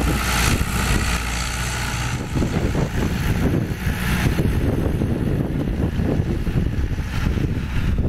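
John Deere 2850 tractor's diesel engine running steadily under load as the tractor drives close past, pulling an offset disc harrow through the soil.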